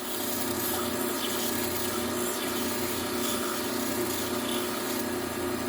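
Low-speed belt sander running steadily with a fine Trizact abrasive belt as a kitchen knife blade is drawn across it, a continuous hiss over a steady motor hum. It is a finishing pass to smooth and polish the edge.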